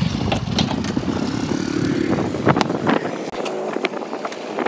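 Petrol running from a fuel-pump nozzle into a motorcycle's tank: a low rumble and rush that drops away about three seconds in, with a few short clicks and knocks.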